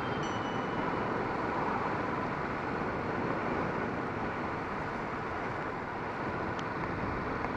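Steady wind and road noise from a Kawasaki Vulcan S motorcycle on the move, even in level throughout.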